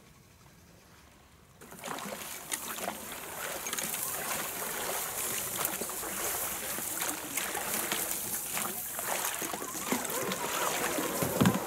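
An inflatable rubber rowboat being rowed into reeds: oars dipping and splashing, with reed stalks brushing and scraping along the hull and occasional knocks from the oars. Very faint at first, it turns loud and busy under two seconds in.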